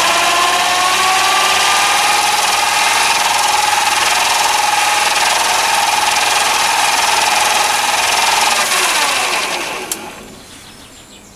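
Chinese mini lathe running in high gear, its motor and headstock drive whining and running smoothly. The pitch rises at the start as the speed is turned up, holds steady, then falls as the spindle spins down about nine seconds in, with a click near the end.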